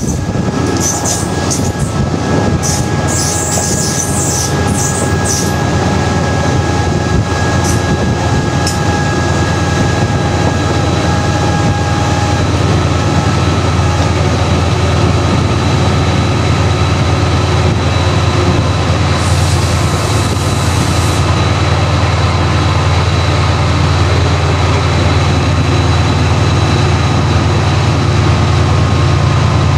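Class 68 diesel locomotive's Caterpillar V16 engine and the train running, heard from inside the hauled coach as a steady low drone that grows slightly louder. Short high-pitched wheel squeals come in the first few seconds, and a brief hiss about two-thirds of the way through.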